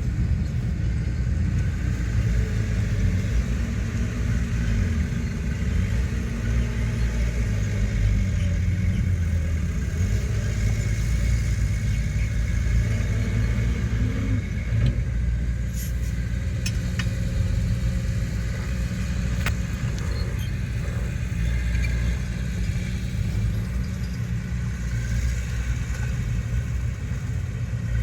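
Heavy earthmoving machinery's diesel engine running steadily with a low drone. A few sharp clicks or clanks are heard around the middle.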